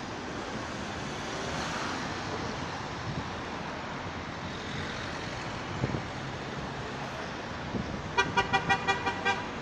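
Steady road traffic noise from a busy roundabout, then near the end a vehicle horn sounded in a rapid series of about eight short beeps, roughly seven a second.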